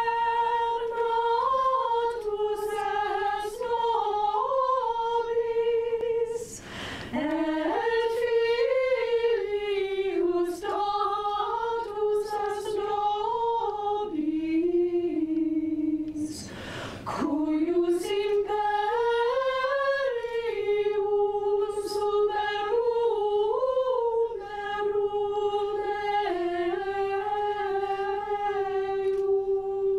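Small a cappella ensemble of women's voices singing long held phrases, with two short breaks between phrases, about seven and seventeen seconds in.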